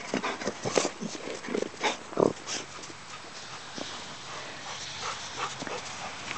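A dog making a quick run of short whines over the first two and a half seconds, then quieter.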